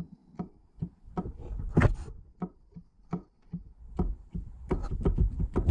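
Irregular light clicks and knocks of hands fitting a small O-ring onto the threaded crankshaft end of a KTM EXC two-stroke engine, with a low handling rumble. The sharpest knock comes a little under two seconds in.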